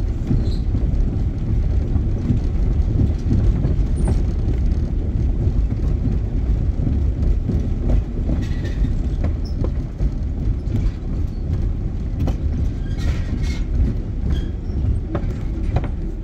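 Car tyres rumbling and clattering over a suspension bridge's deck, heard from inside the cabin: a steady low rumble with scattered knocks and clicks.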